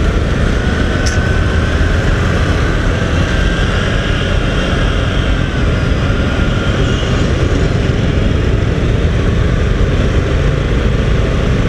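Motorcycle engine running in second gear while the bike is ridden, under a steady rush of wind noise.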